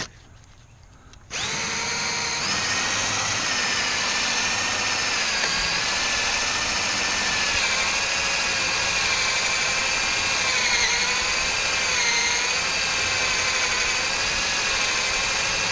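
Cordless drill running a small homemade hole saw into a weathered wooden fence board, coring around a ring shank nail. The motor starts about a second in and then runs steadily, its whine dipping slightly in pitch now and then as the saw loads up in the wood.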